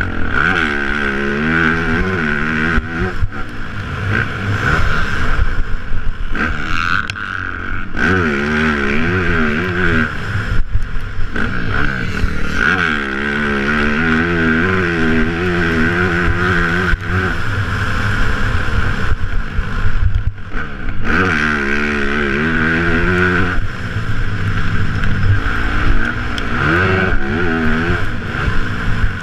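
Motocross bike engine revving hard and shifting during a lap: the pitch repeatedly climbs, drops at each shift or throttle-off, and climbs again, over a steady rushing noise.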